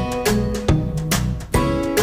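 Background music: quick plucked notes, several a second, over a low bass line.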